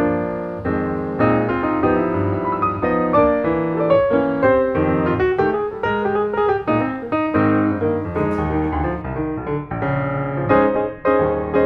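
Background piano music, notes played in quick succession at a steady level.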